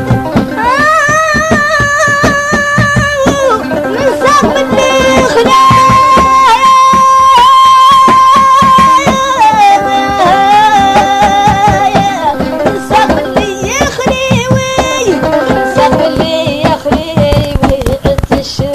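Mauritanian traditional music: a voice sings long, ornamented held notes over a plucked string instrument and a drum.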